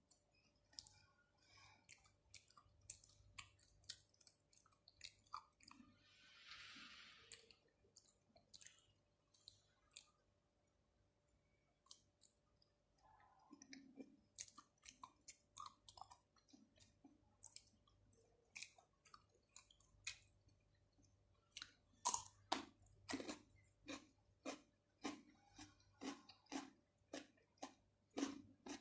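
Close-miked chewing of fresh shrimp, octopus and cucumber, with sticky, wet mouth clicks. A short hissing sound comes about seven seconds in, and in the second half the chewing settles into a steady, louder rhythm of about two chews a second.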